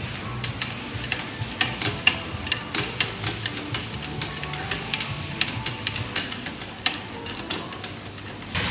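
Irregular clicks and clanks of a hydraulic jack stand being worked to raise a metal oil drain pan, over a steady low hum.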